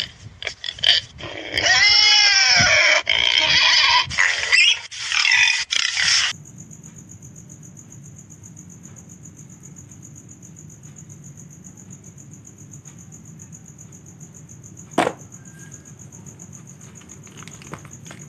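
A domestic pig squealing in a run of rising and falling calls for about six seconds. Then a steady chirring of crickets, with a single click near the end.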